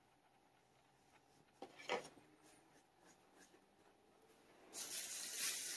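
Quiet, with a short rustle about two seconds in. Near the end a steady, scratchy rubbing and rustling starts: packaging being handled.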